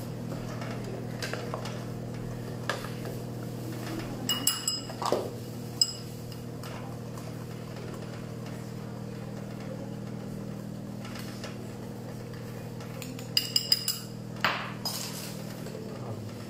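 Utensils clinking against a small glass bowl as cocoa powder is stirred in, a few light clinks about four seconds in and a quick cluster again near the end, over a steady low hum.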